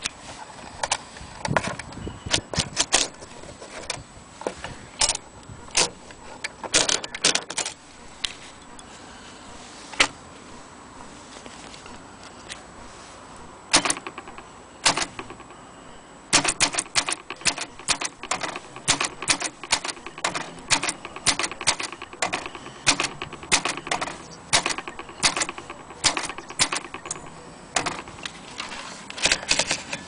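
Keys being struck on a Corona Standard manual typewriter, the typebars clacking in quick irregular runs, with a pause of a few seconds about midway before the typing picks up again.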